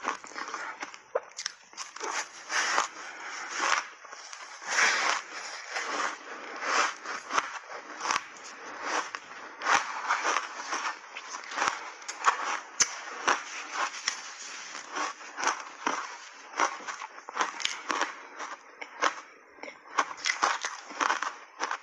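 Close-up crunching and chewing of ice chunks coated in milk powder: a dense, irregular run of sharp crunches and cracks as the ice is bitten and broken between the teeth.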